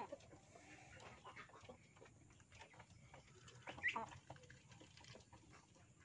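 Faint bird calls, short and scattered, with one brief louder call about four seconds in.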